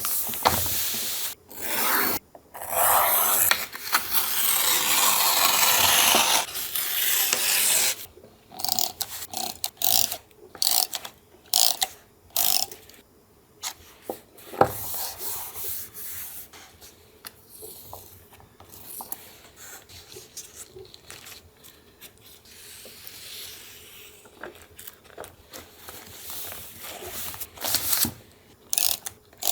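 Paper being handled for a collage: a long stretch of loud rubbing and rustling a few seconds in, then scattered short taps and scrapes of paper and tools.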